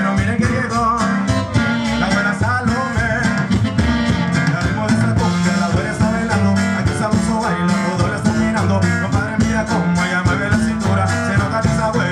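Live cumbia band playing at full volume through a PA, with a repeating bass line, drums and guitar, and voices singing over it.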